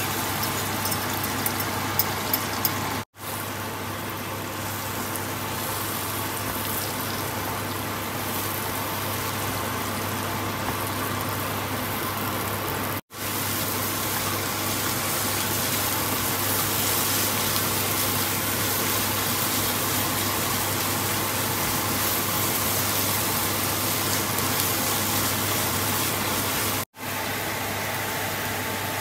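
Beaten eggs with mushrooms and onions sizzling steadily in a hot non-stick wok as they scramble, over a steady low hum. The sound breaks off for an instant three times.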